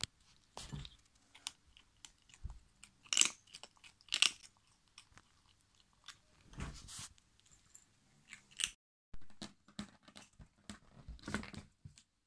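Kitten crunching dry kibble from a bowl: an irregular run of small crunches, two of them louder than the rest. The sound drops out briefly about three-quarters of the way through.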